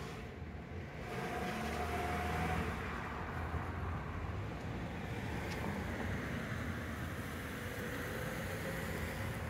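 Road traffic noise: a car passing on the street, its tyre and engine rush swelling about a second in and then holding as a steady background rush.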